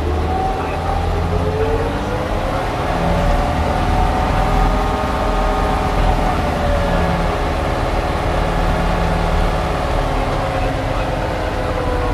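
SupaCat glider-launch winch engine running hard under load while it winds in the cable and hauls a K21 glider up. Its pitch rises for the first few seconds, then eases slowly through the rest of the launch.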